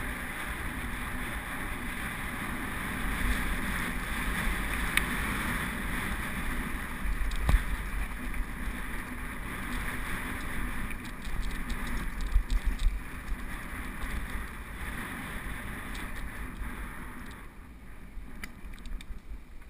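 Mountain bike running fast down a loose gravel track: a steady rush of wind on the action camera's microphone, with the tyres on the stones and the bike rattling and knocking over bumps, the sharpest knocks around the middle. It grows quieter near the end.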